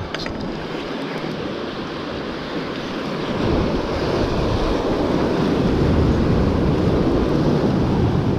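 Sea waves breaking and washing over rocks, with wind buffeting the microphone; the sound swells louder about three and a half seconds in. A few faint clicks at the very start.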